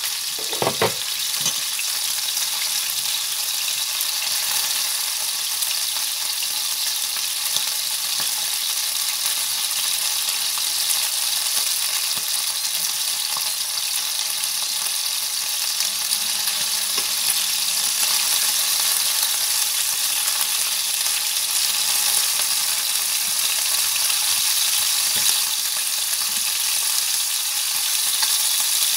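Pieces of marinated, pre-boiled chicken sizzling steadily in hot oil in a frying pan, lightly frying to brown for adobo. There are a few sharp clicks near the start.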